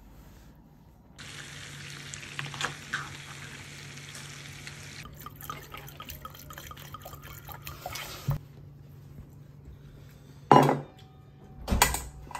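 Liquid pouring and splashing: red wine poured into a stemmed wine glass. Near the end come two loud short knocks of tableware.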